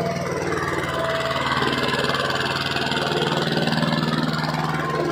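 Mahindra Jivo 245 DI mini tractor's small diesel engine running steadily at low speed with an even pulsing note as the tractor is driven round in a tight circle at full steering lock.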